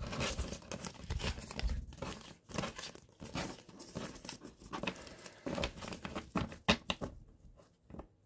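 Close rustling and crinkling handling noise with many light clicks and taps, as something is handled on the table near the microphone; it dies away about a second before the end.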